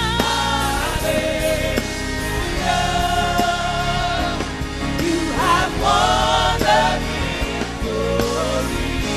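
Gospel worship music: several voices singing held, wavering notes over a full band accompaniment.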